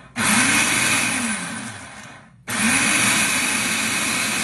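Electric food processor pulsed twice, chopping basil pesto with Parmesan: each pulse starts abruptly, the motor whirs up and then winds down, and the second pulse comes about two and a half seconds in.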